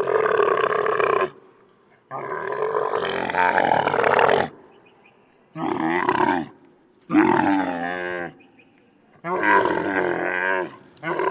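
Camel grunting: a series of long, rough, pitched calls, each one to two and a half seconds long, separated by short pauses, about five in a row with another starting near the end.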